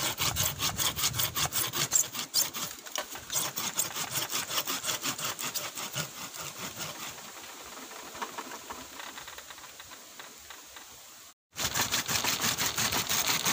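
Hand saw cutting through the thick root knot of a bamboo clump in quick back-and-forth strokes. The strokes grow fainter after about six seconds, break off briefly near the end, then start again.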